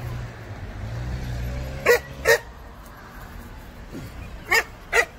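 A dog barking: two quick barks about two seconds in and two more near the end, over a low rumble that fades out after the first barks.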